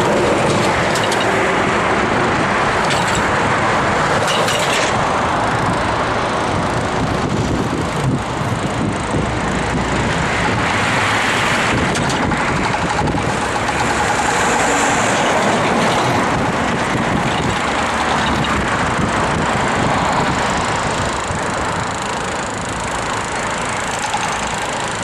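Steady road vehicle noise: engines and tyres on the road, with a few faint clicks.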